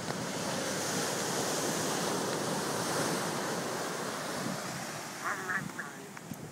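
Surf breaking on a beach: a wash of waves that swells over the first few seconds and then eases off, with some wind on the microphone.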